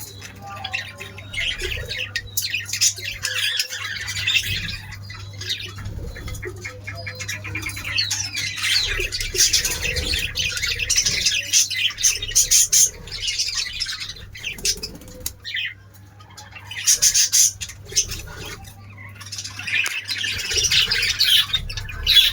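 Many small birds chirping and squawking together in dense, rapid chatter that swells and fades in loud stretches, with a brief lull about two-thirds of the way through. A steady low hum runs underneath.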